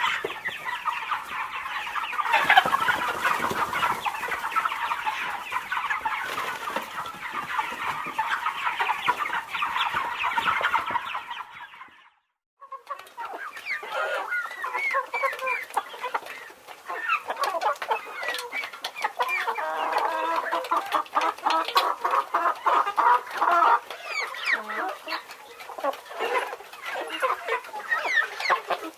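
A flock of chickens clucking, many overlapping calls. The sound breaks off into silence for about half a second near the middle, then more clucking follows.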